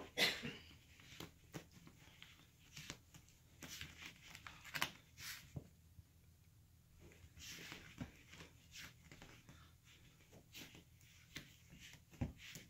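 Miniature schnauzer puppy digging and scratching at a plush fleece dog bed: irregular scratches and scuffles of claws on fabric, loudest at the very start.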